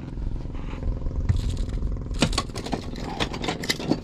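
A small boat engine runs steadily throughout. From about halfway through comes a quick run of sharp clicks and knocks from handling the just-landed emperor fish and its tackle on the boat.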